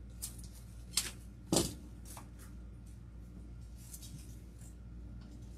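Light rustling with a few sharp clicks and crinkles from artificial eucalyptus stems being tucked into a greenery wreath. The sharpest clicks fall in the first two seconds, over a steady low hum.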